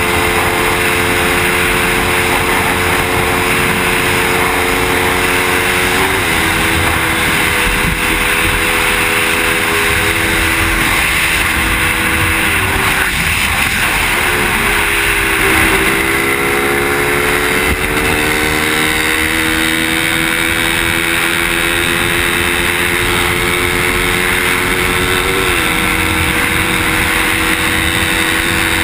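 Motorcycle engine heard from the bike itself while riding at speed, with a continuous rush of wind and road noise. The engine pitch holds steady, jumps briefly about six seconds in, sags and blurs around the middle, then climbs slowly, with another short jump near the end.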